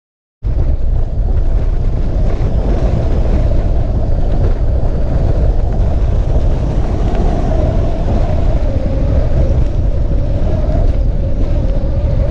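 Strong wind buffeting the microphone out on open water, a loud, steady rumbling noise that cuts in abruptly about half a second in.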